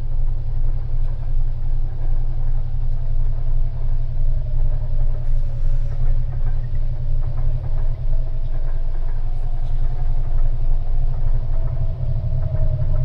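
A deep, steady low rumble with a faint, slowly wavering tone above it.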